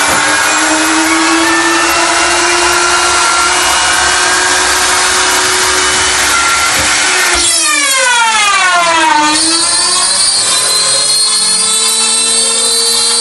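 CNC router spindle running at speed while its small bit mills an acrylic sheet: a steady high cutting noise over a constant whine. About eight seconds in, a whining tone slides down in pitch and climbs back up over roughly two seconds.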